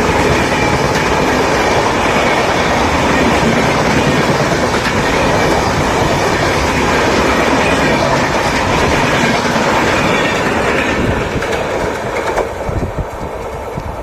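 Train running past, coaches rolling by with wheels clattering over the rail joints; the sound fades away from about eleven seconds in as the train draws off.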